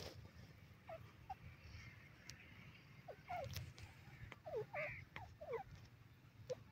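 Grey francolin giving soft, short calls, each a quick downward-sliding note. The calls are scattered and come thicker from about three seconds in, over a low rumble. At the very start there is a brief rustle as the bird flutters in the dust.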